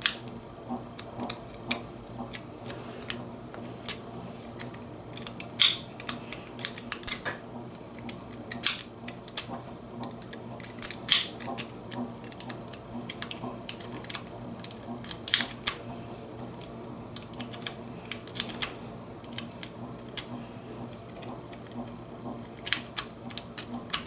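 Lock pick raking inside a Bunker Hill disc padlock: irregular small metallic clicks and ticks, some in quick clusters, over a steady low hum.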